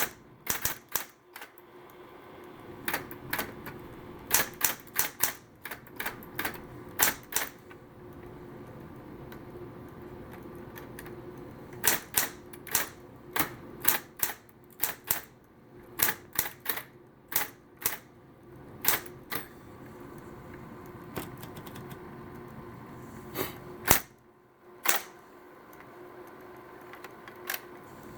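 SCM Smith Corona Coronet Automatic 12 electric typewriter typing: sharp key clacks in irregular runs with short pauses between, over the steady hum of its running motor.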